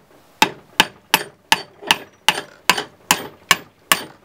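Hammer blows on a wooden dowel, driving a cast lead bullet slug through the bore of a 9mm pistol barrel clamped in a vise, so the barrel's groove diameter can be measured. The blows come in a steady rhythm of about two and a half a second, each a sharp knock with a short ringing tail.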